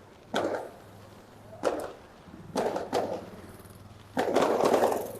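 Fireworks going off on a city street: a series of sharp bangs, each with a short echoing tail, about a second apart, ending in a longer burst of rapid bangs about four seconds in.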